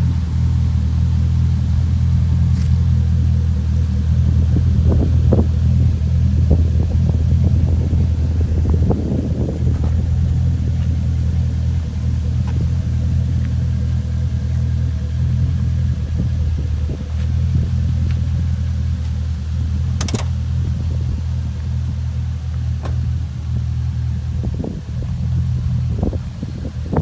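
2010 Corvette Grand Sport's 6.2-litre LS3 V8 idling steadily.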